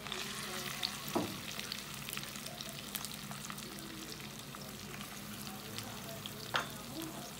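Shredded roast pork sizzling and crackling in hot oil in a pot as handfuls of meat are dropped in, with two short knocks, about a second in and near the end.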